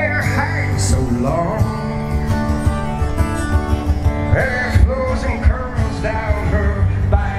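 Live band playing a song: a singer's voice over the instruments and a steady bass line.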